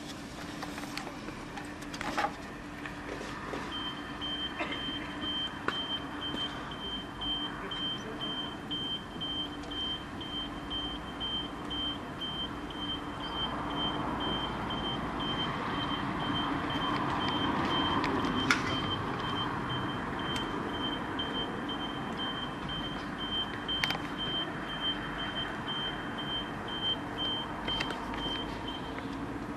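A car on fire, with a few sharp pops over a background of steady noise. From a few seconds in, a high-pitched electronic beeping pulses several times a second. A vehicle's engine noise swells and fades around the middle.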